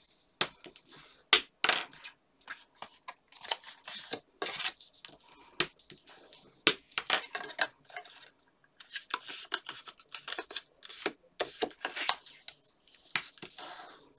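Card stock being folded along its score lines and creased with a bone folder, making irregular crackles, clicks and scrapes.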